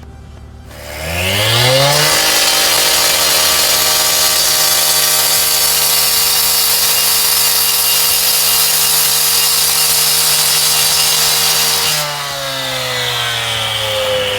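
Two-stroke gas-powered saw revving up about a second in, held at full throttle with a harsh cutting hiss, then easing off and winding down near the end.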